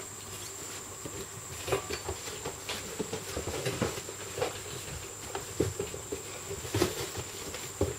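Doberman puppies moving about: irregular light taps, scuffs and rustles, over a steady faint high whine.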